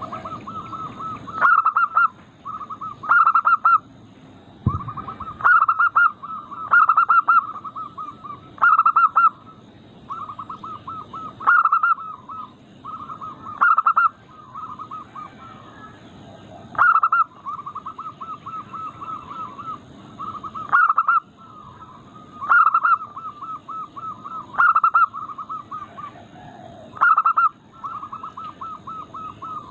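Zebra dove (perkutut) cooing in its typical song: repeated phrases, each a louder opening note followed by a rapid run of short staccato coos, every two to three seconds.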